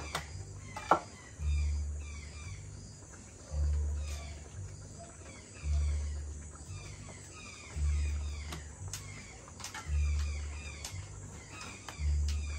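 Many birds calling at dusk, a dense run of short, high, downward-sweeping chirps. Under them a deep low pulse repeats about every two seconds, and there are a few sharp clicks.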